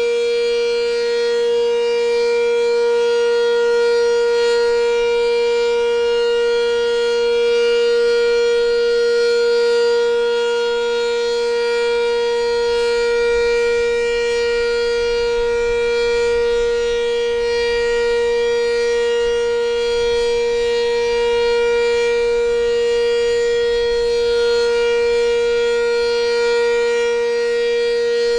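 Sentry 10V outdoor warning siren sounding a steady alert tone: one loud, unwavering pitch with a rich stack of overtones and a weaker lower tone beneath, the level swelling and easing only slightly.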